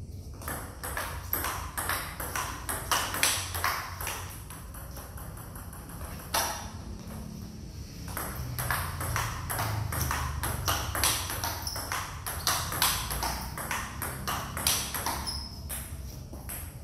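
Table tennis rally: the celluloid-type ball clicking rapidly off the bats and the table, one bat faced with Butterfly Challenger Attack short-pimpled rubber. A pause of about two seconds comes some six seconds in, then play resumes.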